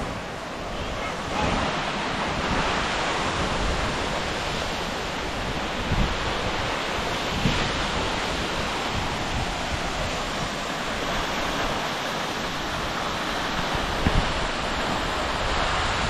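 Waterfall rushing steadily, with wind buffeting the microphone and a couple of soft bumps about six and fourteen seconds in.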